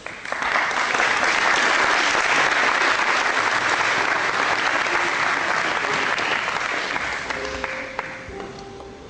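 Audience applauding, breaking out suddenly and dying away near the end.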